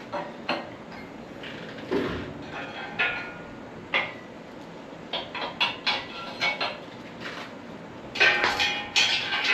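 Irregular metal clinks and knocks of a bumper mounting bolt, washer and lock nut being worked with hand tools as the bolt is threaded home. Quicker runs of clinks come about five seconds in and again near the end.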